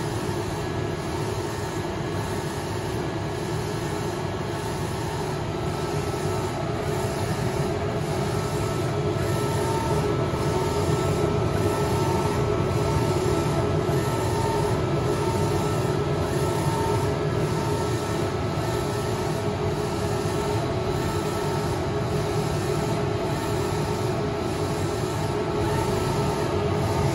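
Keditec 9060 UV flatbed printer running: a steady mechanical hum of its motors and fans, with a faint pulse repeating a little faster than once a second as its table moves.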